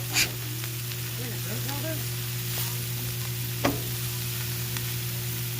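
Pork chops frying on the steel top of a Blackstone 22-inch griddle at medium-low heat, a steady sizzle. A sharp knock comes just after the start and another about three and a half seconds in.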